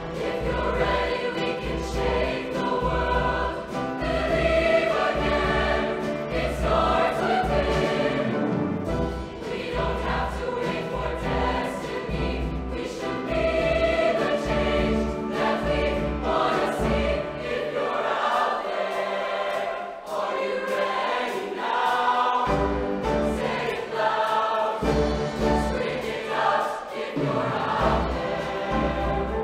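High school show choir singing in full harmony over a live backing band with a steady low beat. The bass and drums drop out for a few seconds about two-thirds of the way through, leaving the voices alone, then come back in.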